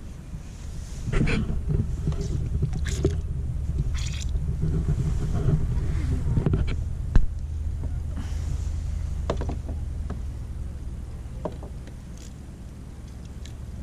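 Steady low rumble on the water, with scattered sharp splashes and knocks around a kayak.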